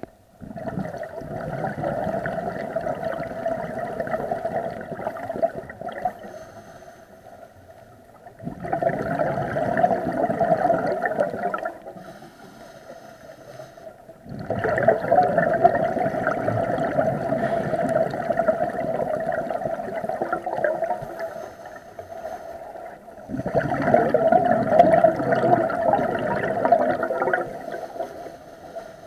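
Scuba diver's exhaled bubbles from the regulator gurgling past an underwater camera housing, in four long bursts of several seconds each, with quieter pauses of about two seconds in between while the diver breathes in.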